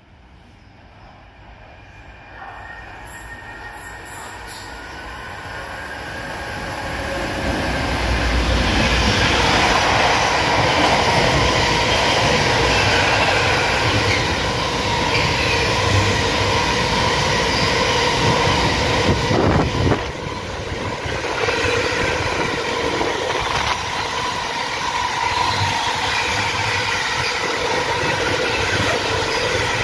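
A train approaching on the rails, growing steadily louder over the first eight seconds, then running close by for the rest, with a dense rumble of wheels on track and a few steady tones above it.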